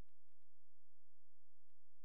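Steady low electrical hum with faint steady high-pitched whines and a few faint ticks: electronic noise from the recording system, with no sound from the scene itself.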